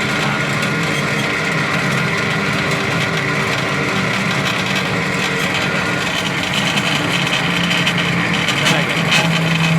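Air handling unit blower motor running on its own with the belt off, giving a loud, steady mechanical hum and rumble from inside the motor: the sign of a damaged motor bearing that needs replacing.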